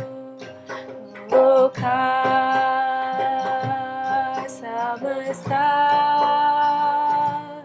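A woman singing long held notes without words, each lasting a couple of seconds, over a low sustained musical accompaniment.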